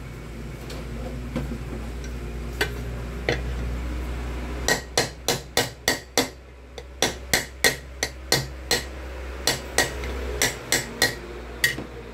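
Hammer tapping a metal pressure-cooker lid seated over a pin in a bench vise, knocking it into line so its central pin hole is aligned. A few light taps come first, then from about a third of the way in there is a run of some twenty sharp metallic taps, several a second, in short bursts.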